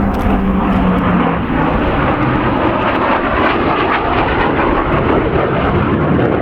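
Hawker Hunter Mk 58 jet in display flight, its Rolls-Royce Avon turbojet a loud, steady rush of engine noise. A low tone drops slightly in pitch over the first second and a half.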